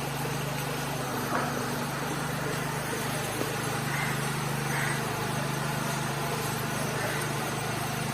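Steady outdoor ambience: a constant low, engine-like hum under an even hiss, with a few faint short chirps about four and five seconds in.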